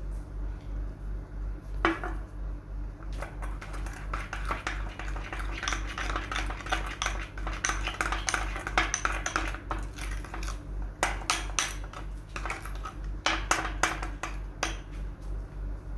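Utensil clinking and scraping against a bowl in quick runs of sharp clicks, with a low pulsing hum underneath.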